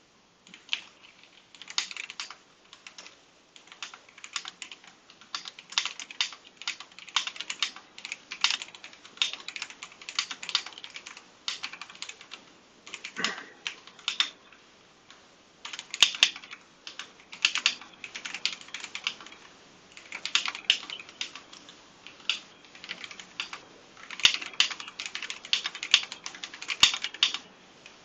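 Typing on a Royal Kludge H81 mechanical keyboard with tactile brown switches: quick runs of keystrokes broken by short pauses.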